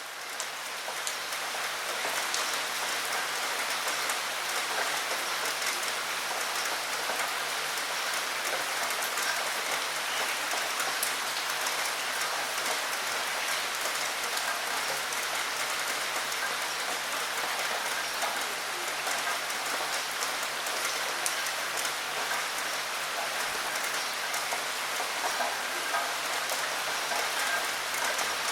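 Steady rain falling against a window, a dense even hiss flecked with many separate drop ticks, swelling up over the first couple of seconds and then holding steady.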